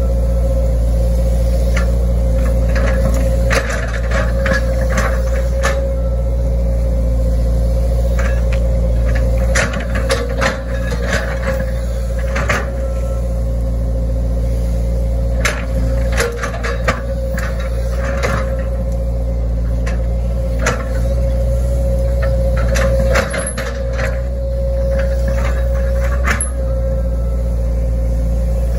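Hitachi Zaxis 110 excavator's diesel engine running steadily under working load, with a steady whine over the engine, and irregular clanks and knocks from the bucket and boom linkage as the bucket digs and scrapes through grass and soil.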